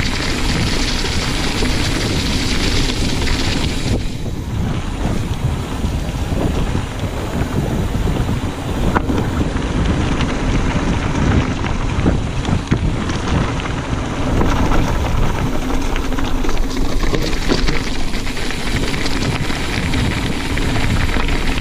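Mountain bike descending fast: tyres rolling and crunching over leaf litter and gravel, wind rushing over the action camera's microphone, and the bike knocking over bumps. The high hiss eases about four seconds in and comes back near the end.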